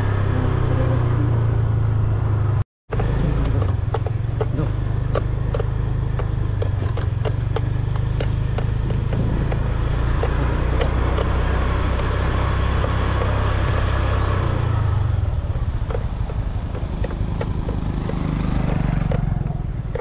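Small motorcycle engine running steadily under way, with many small knocks and rattles as it rides over a rough dirt track. The sound drops out briefly about three seconds in, and the engine eases off near the end.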